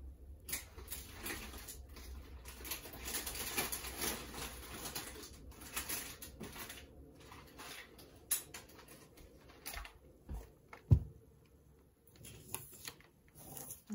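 Someone rummaging off-camera for cookie packages: irregular rustling and scraping with scattered clicks, and one sharp knock about eleven seconds in.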